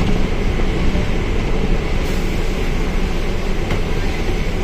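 Mercedes-Benz OF1721L bus on the move, heard from on board: a steady mix of diesel engine, drivetrain and running noise, heaviest in the low end.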